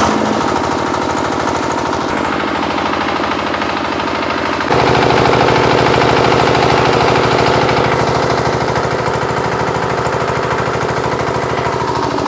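Single-cylinder diesel generator engine running with an even, rapid firing beat. About five seconds in it gets louder and fuller.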